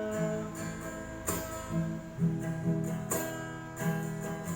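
Acoustic guitar strumming chords, with firm strokes about a second in and again about three seconds in, the chords ringing on between them.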